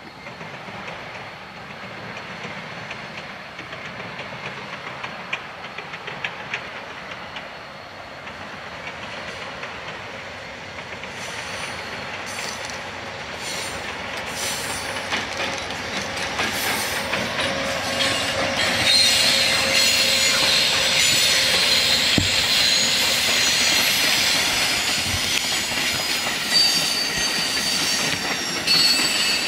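Amtrak passenger train led by GE P42DC diesel locomotives, with a Siemens Charger trailing, approaching and passing. The sound grows steadily louder over about twenty seconds, then the wheels squeal and click over the rail joints as the locomotives and cars go by.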